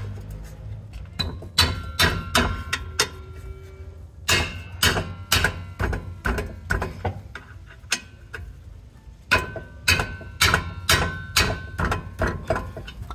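Metal clicks and knocks from a hand tool tightening the rear caliper bracket bolts on a 2014 Nissan Sentra's disc brake. They come in three bursts of several a second, and some leave a short metallic ring.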